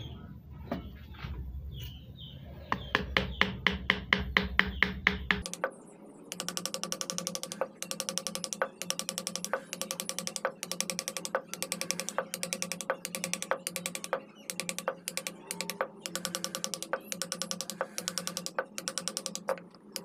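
Hand-pushed carving gouge cutting short grooves into wood, a rapid series of crisp clicks at about four to five a second, coming in runs with brief pauses.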